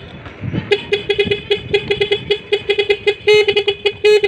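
Nhay Pro electronic horn on a mountain bike sounding one of its preset patterns: a rapid string of short beeps, about five a second, then two longer toots near the end.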